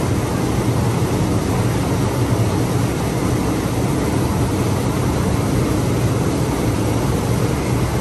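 River rapids ride's round raft boats moving on a conveyor track, with a steady low mechanical rumble and rushing water.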